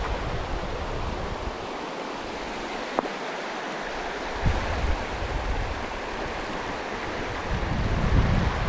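Shallow mountain creek running over stones: a steady rushing hiss. Wind buffets the microphone now and then, most strongly near the end, and there is a single sharp click about three seconds in.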